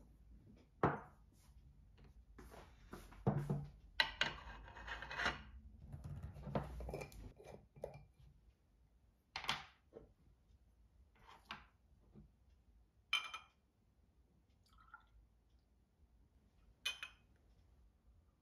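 A glass tumbler and a glass jar set down on a wooden dining table: a few separate clinks and knocks, some with a short glassy ring, with a longer shuffle of movement about four to five seconds in.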